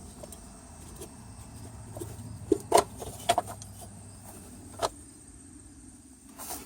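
Handling noises: a few sharp clicks and knocks between about two and five seconds in, over a low steady hum that stops about five seconds in.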